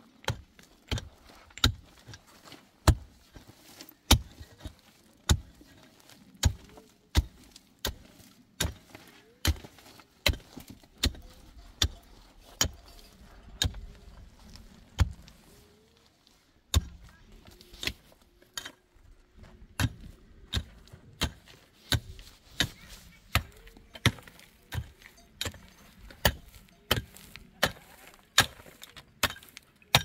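A steady series of sharp knocks, a little more than one a second, with two short pauses about halfway through.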